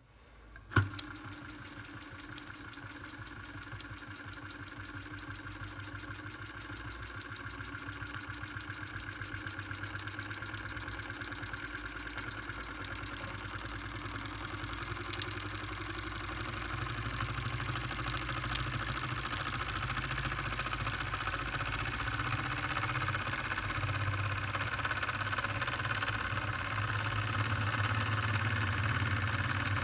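Restored SEL 1530 toy steam engine running under steam, its oscillating cylinder giving a rapid, even beat that grows gradually louder. A sharp click about a second in.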